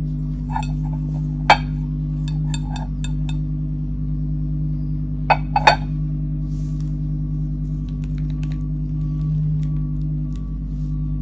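Light clinks and taps of a paint brush against a ceramic palette and dish while mixing paint: a cluster of small ticks, one sharp clink about a second and a half in and two more a little past five seconds. A steady low hum runs underneath.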